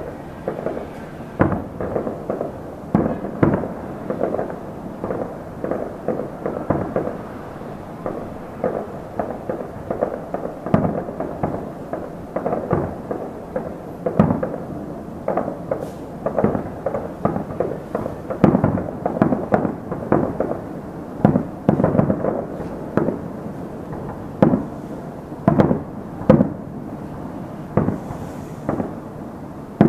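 Distant fireworks display: a steady run of dull booms at irregular intervals, sometimes several a second, each trailing off in a rumbling echo, with little high-pitched crackle.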